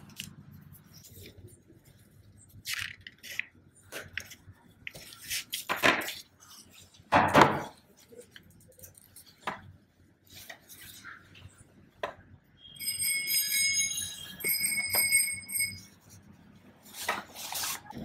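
Scattered clicks, knocks and rustles of a crimping tool, a network cable and its freshly crimped RJ45 plug being handled, the loudest a knock about seven seconds in. A few seconds of high, steady pitched tones come in two spells about two-thirds of the way through.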